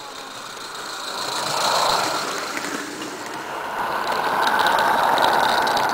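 Small-scale live-steam garden railway locomotives running past close by: a steady hiss of steam exhaust and running gear that swells twice, about two seconds in and again near the end.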